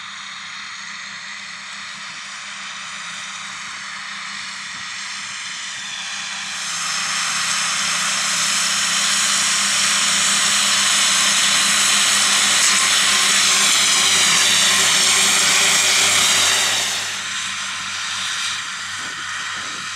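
Fendt 826 Vario tractor running a Kuhn triple mower combination while mowing grass: a steady engine drone under a high whine from the spinning mowers. It grows louder about a third of the way in as the rig comes close, then drops away sharply a few seconds before the end.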